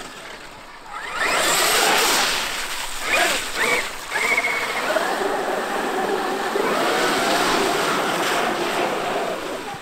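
Traxxas X-Maxx brushless electric RC monster truck driving through shallow muddy water: splashing and spraying from its tyres, loudest about a second in, with the motor's whine rising and falling with the throttle.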